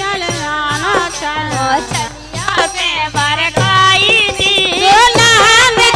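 Women singing a Kartik geet, a devotional folk song, into microphones, with light percussion keeping time. The singing swells louder a little past halfway.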